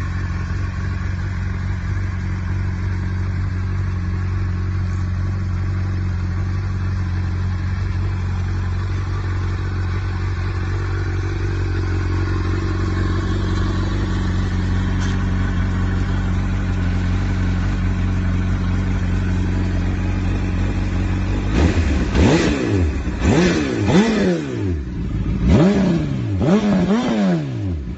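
2005 Honda CBR1000RR's inline-four engine idling steadily. About three-quarters of the way through it is revved in about six quick throttle blips, each rising and falling sharply in pitch.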